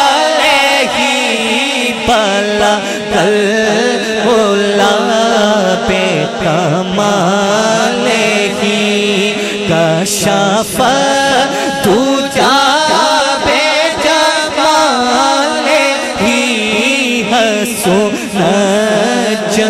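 A man's voice singing a naat unaccompanied into a microphone, in a long, ornamented melodic line that waves and glides in pitch. A steady low drone is held underneath.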